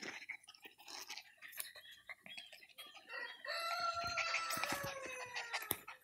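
A rooster crowing once about halfway in: one long call held for about two seconds that drops in pitch at the end. Short scuffs and rustles of puppies being handled sound around it.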